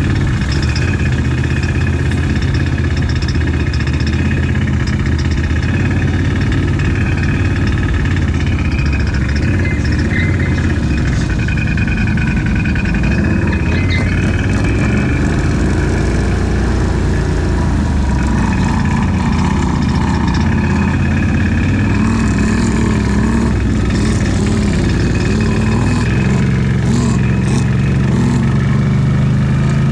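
ATV engine running steadily as it is ridden, its pitch rising and falling with the throttle and climbing near the end as it speeds up.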